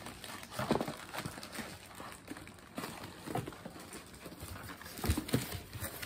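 Cardboard box being opened and handled: flaps unfolding and packaging rustling, with scattered irregular knocks and scrapes.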